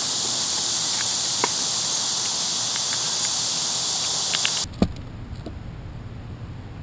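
A steady, high-pitched insect chorus, with a few light clicks of a squirrel's claws on a clear plastic sheet. A bit past halfway it cuts off abruptly, followed by one sharp knock and then a quieter low hum.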